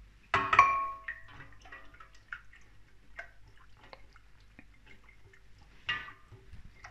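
A glass measuring jug clinks against the rim of a stainless steel pot with a short ringing tone about half a second in, and again more softly near the end. Between them come light ticks and drips as egg mixture is poured and whisked into the milk in the pot.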